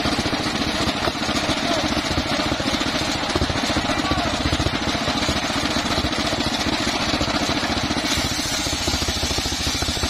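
Homemade engine-driven circular saw bench running steadily, its blade ripping teak boards lengthwise into rafters. The motor's fast, even pulsing runs under the hiss of the blade in the wood.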